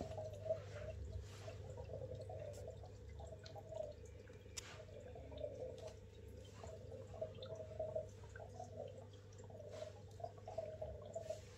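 Faint water dripping and gurgling over a steady low hum, with scattered small clicks.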